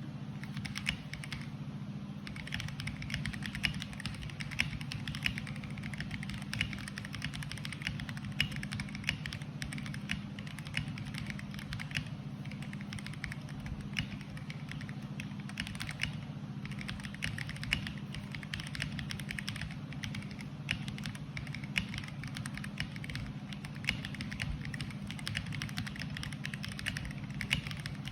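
Typing on a stock Fuhlen H75s keyboard: irregular keystroke clicks, several a second, with no pauses longer than a moment.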